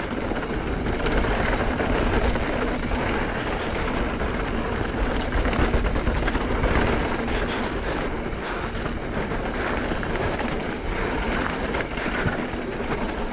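Mountain bike riding fast down a dirt singletrack, heard from a handlebar-mounted camera: a steady rush of air and tyre noise with constant light clicks and rattles from the bike.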